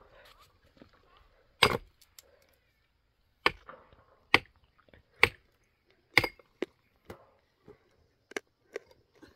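Hand tools striking and breaking rock: sharp, irregular blows. The loudest come about a second apart through the middle, and lighter knocks follow near the end.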